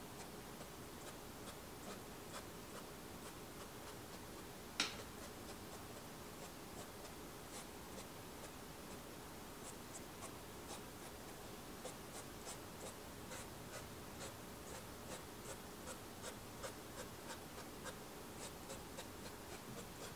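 Fingertips rubbing and blending soft pastel into the paper's tooth with light pressure: faint short scratchy strokes, sparse at first, then about two a second. One sharp click comes about five seconds in.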